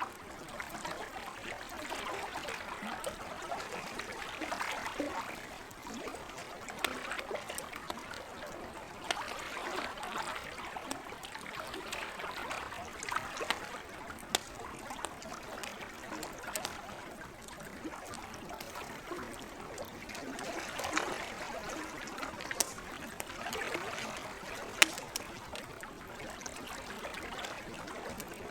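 Gentle lake water trickling, with the sharp pops and crackles of a campfire scattered through it; one pop near the end is the loudest.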